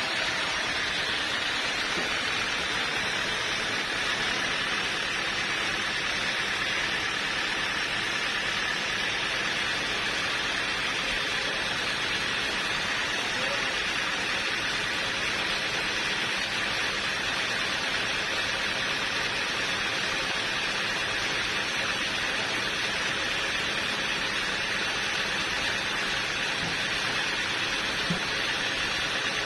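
Steady hissing mechanical noise, like machinery running under constant load, holding at one level with no breaks or changes.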